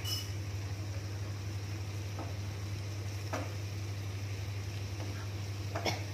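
Stir-fry in a non-stick frying pan over a gas burner: a steady low hum and faint hiss, with three soft spatula scrapes against the pan.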